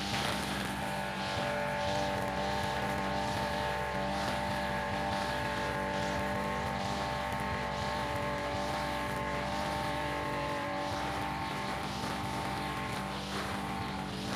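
Engine-driven string trimmer (brush cutter) with a nylon line head running steadily at high speed, with a repeated swishing about once or twice a second as the spinning line sweeps through grass.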